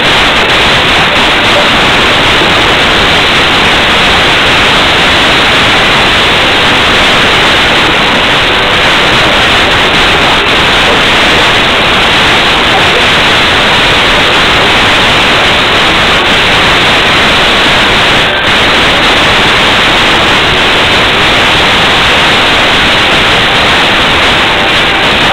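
Loud, steady static-like hiss with no distinct tones or rhythm.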